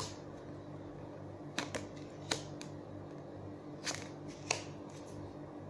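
A deck of fortune-telling cards handled and shuffled by hand: a scattering of short, sharp card clicks and snaps over a low steady hum.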